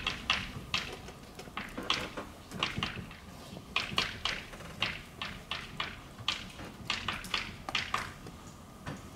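Chalk writing on a blackboard: a quick, irregular run of taps and short scratches as the letters go down.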